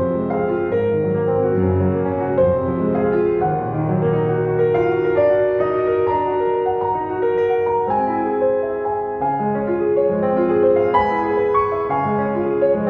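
Background music: piano playing a gentle melody.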